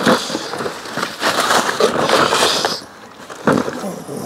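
Plastic packaging bags crinkling and rustling while parts are handled in a cardboard box, with a few sharp knocks.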